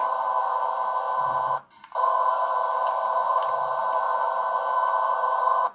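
Elevator cab ventilation fan in an older Otis Series 1 elevator, a steady hum with several pitches. It cuts out briefly about a second and a half in and again near the end.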